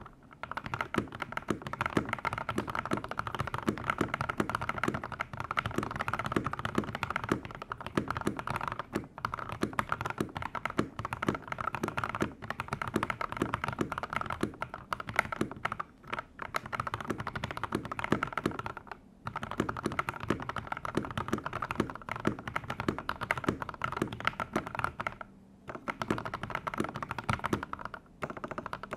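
Fast, continuous typing on a Daxa M84 mechanical keyboard with lubed and filmed Gateron Yellow linear switches and XDA-profile keycaps, the keystrokes coming thick and fast with a few brief pauses.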